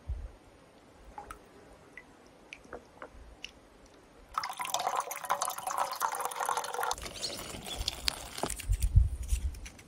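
Water dripping in scattered single drops. About four seconds in, a louder stretch of running or splashing water lasts a few seconds, followed by low rumbling near the end.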